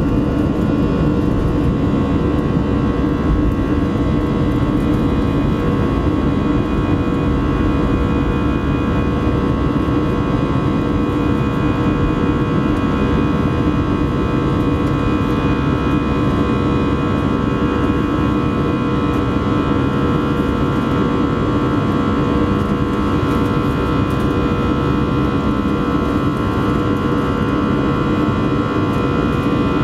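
An Airbus A319's jet engines at takeoff thrust, heard inside the cabin from a seat beside the engine as the airliner lifts off and climbs. The engine noise is loud and steady, with a steady whine from the engine fan over it.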